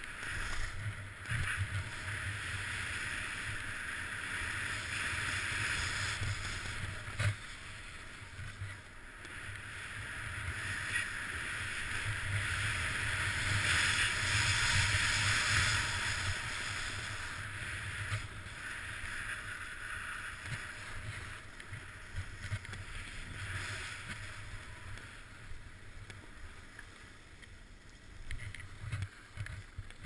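Skis hissing and scraping over packed snow during a downhill run, with a low wind rumble on the microphone. The hiss swells to its loudest about halfway through and eases off toward the end, with a few sharp clicks along the way.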